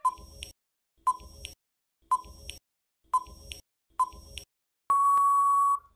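Countdown timer sound effect: five short beeps about a second apart, then one longer steady beep near the end as the count reaches zero.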